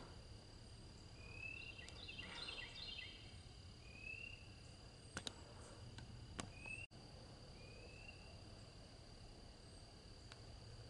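Faint outdoor field-edge ambience: short rising bird calls every few seconds and a brief burst of chattering calls, over a steady high thin insect-like whine. A few soft sharp clicks stand out, at about five, six and ten seconds in.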